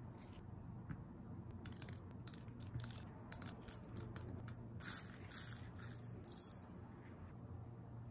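Tiny clear beads clicking and rattling as they are scooped from a plastic zip bag and dropped into a clear resin heart-shaped shaker frame. Quick separate clicks start about a second and a half in, building to a denser rattle near the end.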